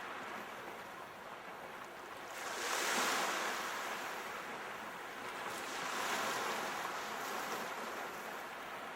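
Ocean surf: a steady wash of waves, with one wave swelling and breaking about three seconds in and a smaller one around six seconds.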